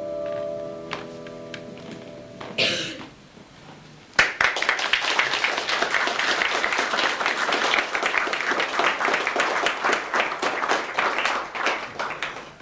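A piano's final chord rings on and dies away, then after a short pause an audience breaks into applause about four seconds in, clapping for about eight seconds and tailing off at the end.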